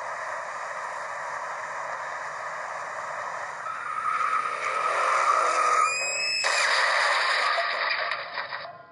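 Sound-effect car crash: a car driving with steady road noise, then tyres squealing as it skids, building about four seconds in. A loud scraping crash noise follows a little after halfway and cuts off near the end.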